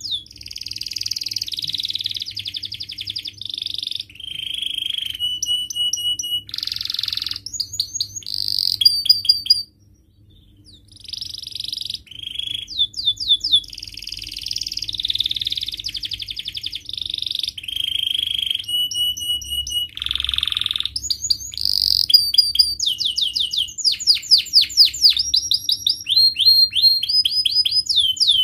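Domestic canary singing a long, varied song of rapid trills and repeated-note rolls, the phrases changing every second or two, with one short pause about ten seconds in. It is the steady, full song of a 'gacor' canary, used as a tutor song for young canaries learning to sing.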